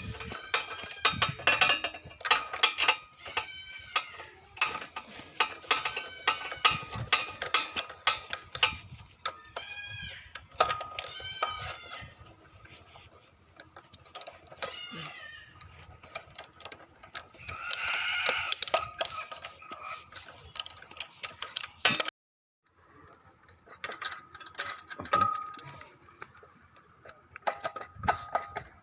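A ratchet wrench clicks in short runs and metal tools clink while bolts are undone on a small petrol generator engine. About two-thirds through there is a short pitched sound.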